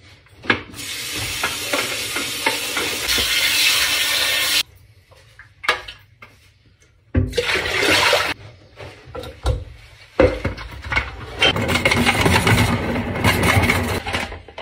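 Kitchen tap running water over salad in a salad spinner basket, shut off suddenly after a few seconds, then run again briefly. About ten seconds in, the pump-action salad spinner is worked, whirring with water sloshing and rattling inside its bowl.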